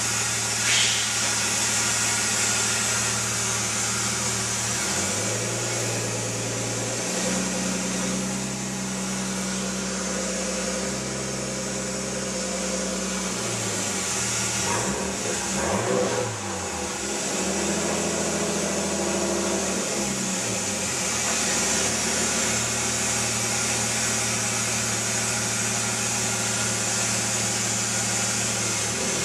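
Nissan Skyline R33 GTS-t's RB25DET turbocharged straight-six running with a misfire. It idles, steps up to a held higher speed about five and seven seconds in, dips and rises again around fifteen seconds, and settles back to idle about twenty-one seconds in. The misfire is from the wrong spark plugs: platinum NGK PFRG5-11 fitted where iridium BKR6EIX-11 belong.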